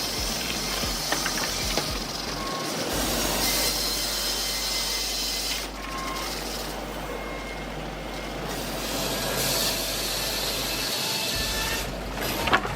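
Sawmill machinery running: saw and motor noise that changes abruptly a few times as the footage cuts from one machine to another.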